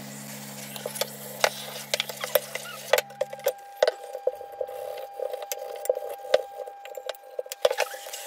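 Sharp clicks and knocks, irregular and repeated, from metal suspension-fork parts being handled and scrubbed with a toothbrush and spray degreaser. A low steady hum runs underneath and stops about three and a half seconds in, then a thin higher steady tone holds until near the end.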